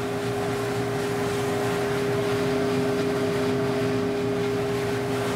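Valenta 7 fluid-bed coffee roaster running mid-roast: its air blower, which keeps the beans lofting, gives a steady drone with a held hum.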